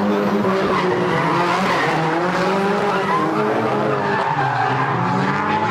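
Drift cars sliding through a mountain-pass corner: engines revving at high rpm with tyres squealing. The engine note falls and climbs again as the cars work through the bend.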